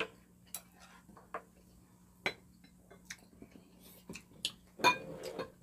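Chopsticks and a spoon clicking and clinking against ceramic bowls as two people eat: scattered light taps, with a louder clink that rings briefly near the end.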